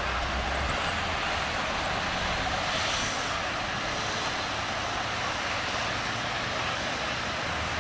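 Freeway traffic passing steadily, a continuous rush of tyres and engines, with one vehicle swelling louder about three seconds in.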